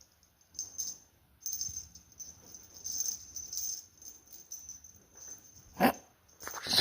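A cat toy jingling in short, irregular bursts with a high metallic ring as cats bat it about, with a sharp knock a little before the end and a louder one at the very end.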